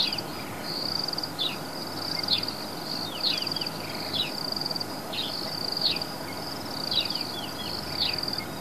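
Insects chirping in short, high, rapidly pulsed trills, repeating about once a second, with quick falling high notes mixed in.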